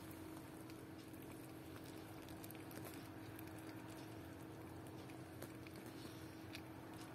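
Faint scattered ticks and soft rustling from newborn puppies shifting and nuzzling on crumpled paper, over a steady low hum.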